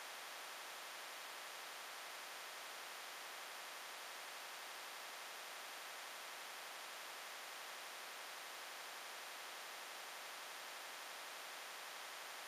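Steady white-noise static hiss with no other sound: the track carries no recorded audio.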